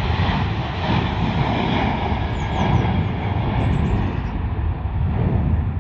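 Jet engines of a Ryanair Boeing 737 airliner at takeoff power as it climbs out just after leaving the runway: a loud, steady roar.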